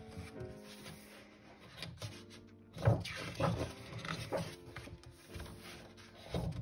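Pages of a large illustrated hardcover book being handled and turned, with a few sudden paper thumps and rustles, the loudest about three seconds in. Quiet piano music plays underneath.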